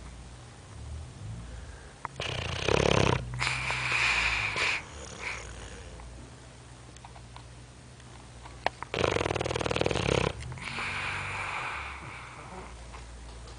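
Boxer dog snoring in its sleep: two loud, rough, buzzing inhales about seven seconds apart, each followed by a softer hissing exhale.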